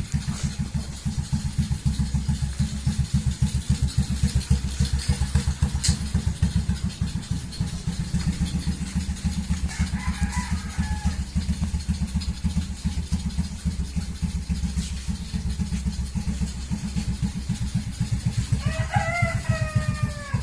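Stock Suzuki Raider J Pro 110cc single-cylinder four-stroke engine, swapped into a Yamaha Chappy, idling steadily with an even, regular firing beat.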